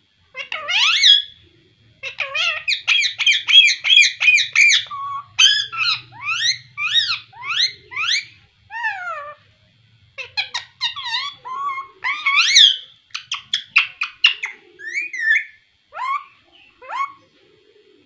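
Indian ringneck parakeet chattering: a fast run of shrill chirps about two seconds in, then scattered squawks and calls that swoop up and down in pitch.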